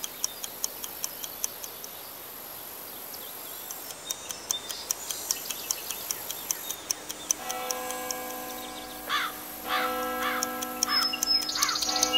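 A clock ticking steadily. About two-thirds of the way in, soft held tones and repeated bird chirps join the ticking.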